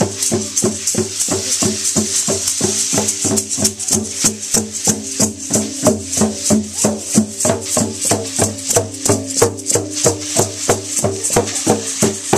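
Rattles shaken in a steady rhythm for a dance, a crisp rattling on every beat, with a low sustained tone underneath.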